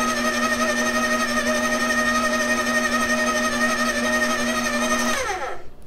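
Electric stand mixer beating butter, sugar and eggs with a flat paddle, its motor running with a steady whine. About five seconds in it is switched off and the whine falls in pitch as the motor spins down.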